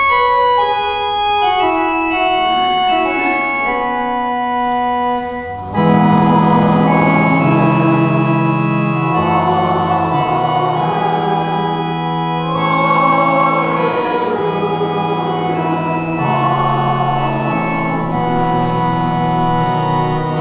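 Church organ playing the closing voluntary in slow, held chords. It begins with a lighter, higher sound, then about six seconds in fuller chords with deep bass notes come in and it gets louder.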